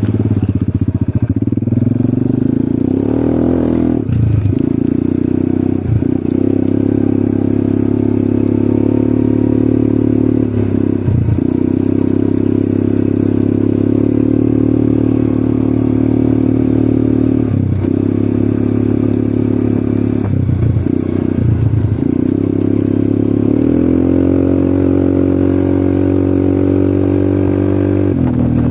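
ATV engine running steadily under way, its note dipping briefly several times. About 24 seconds in it rises to a higher pitch and holds there.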